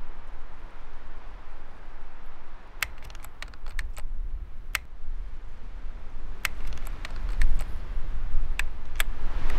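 Keys being typed one at a time: about fifteen sharp, unevenly spaced keystroke clicks starting about three seconds in, over a steady hiss and low hum.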